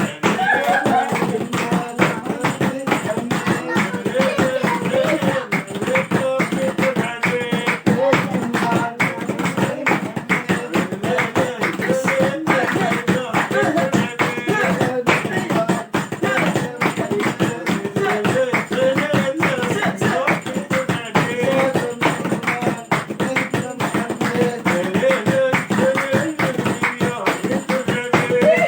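Voices singing a Rekba folk chant, the Saharan folk music of Zagora, over continuous hand claps and percussion.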